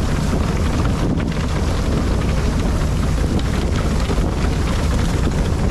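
Steady wind buffeting the microphone, mixed with the running noise of a fishing boat at sea.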